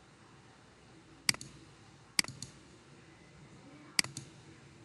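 Three sharp computer-mouse clicks, about a second and then two seconds apart, each followed by a fainter click, as points are picked on screen. Faint steady hiss between them.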